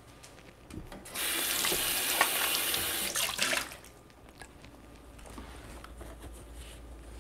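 Kitchen tap running into the sink as a cup is rinsed. The water starts about a second in, runs steadily for about two and a half seconds and is then shut off, followed by a few faint knocks.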